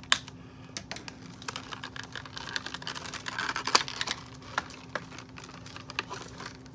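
Clear plastic packaging clicking and crackling as a fashion doll is worked out of it by hand: a run of short, sharp clicks, with a denser crinkle and the loudest snap about three and a half to four seconds in.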